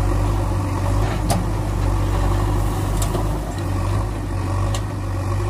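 Steady low drone of a heavy vehicle engine running at an even, idle-like pace, with three faint sharp clicks about a second and a half apart.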